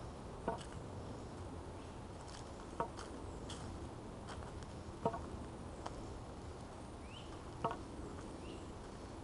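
Wooden walking stick tapping on a paved path: four sharp taps about two and a half seconds apart, over a steady low rumble.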